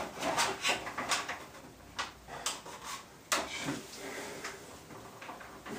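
Plastic beak (high-level front mudguard) of a Triumph Tiger 800 being pushed and clipped onto its mounts: a series of short plastic clicks and knocks, the sharpest a little past halfway.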